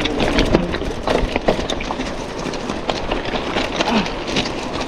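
Hero Octane Springbok 26 mountain bike rolling downhill over loose rocks, tyres crunching over stones and the bike clattering with many irregular knocks.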